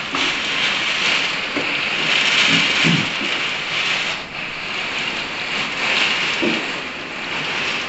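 Heavy rain pouring down in a gusty wind, a steady dense hiss. Its sound is a sign of how heavy the rain is.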